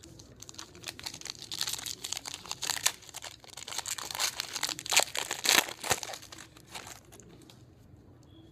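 Clear plastic crinkling as it is worked by hand, a dense run of small crackles with the loudest about five seconds in; it dies away near the end.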